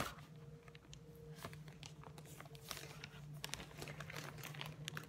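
Light clicks and rustles from a small plastic foundation tube handled in the fingers close to the microphone, over a steady low hum.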